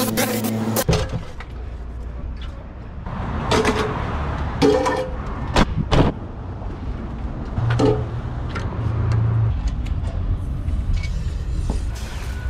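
A compressed-air nozzle blowing out a truck cab cuts off about a second in. A steady low engine rumble follows, with scattered knocks and clanks of equipment being handled.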